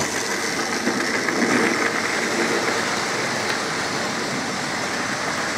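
OO-gauge model tank locomotive and coaches running on sectional model railway track: a steady rolling rattle of small wheels and motor, slightly louder a second or two in as the train passes closest.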